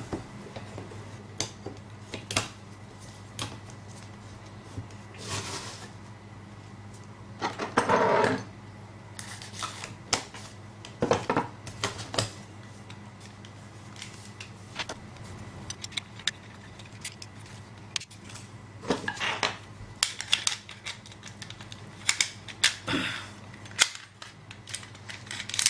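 Small metal parts of a uPVC sash lock being fitted back into the lock case: scattered clicks, clinks and short scrapes over a steady low hum.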